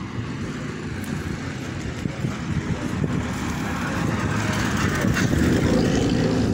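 A car driving up the street toward the camera, its engine and tyre noise growing louder over the last few seconds.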